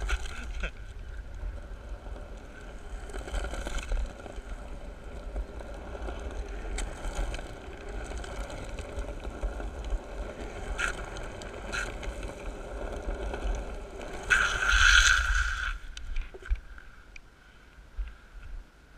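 Skateboard wheels rolling over an asphalt path with a steady low rumble and a few light clicks, then, about fourteen seconds in, a slide of about a second and a half as the wheels scrape sideways across the tarmac.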